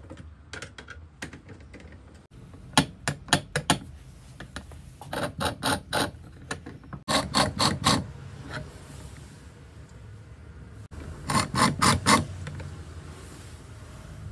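Four short bursts of rapid mechanical clicking, about six clicks a second and each lasting about a second, from a drill-driver-powered sharpening jig.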